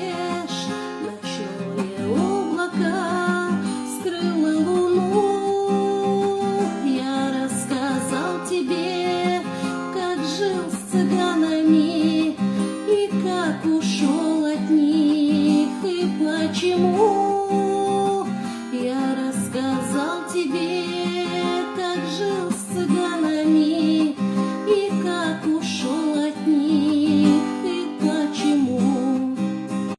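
A song played on acoustic guitar, with a woman's voice carrying a melody that bends smoothly up and down.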